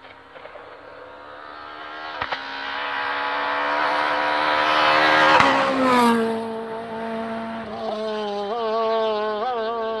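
Rally car racing up a tarmac road. The engine note rises and grows louder as it approaches, peaks as it passes about halfway through, then drops in pitch as it goes away, with several quick changes in engine note near the end.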